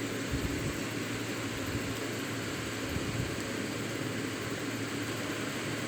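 Sliced onions sizzling steadily in a pan of hot oil as they begin to fry.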